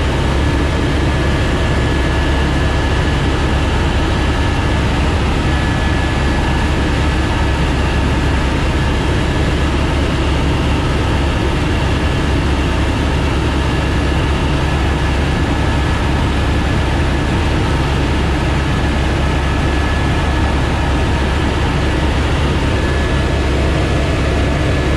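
Airbus AS350 Écureuil helicopter in flight: the steady drone of its single turboshaft engine and rotor, with a thin, steady high whine over it.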